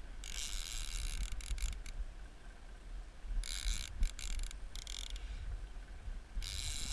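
Fishing reel ratcheting in three bursts, the first about a second and a half long, with a striped bass on the line and the rod bent under its pull.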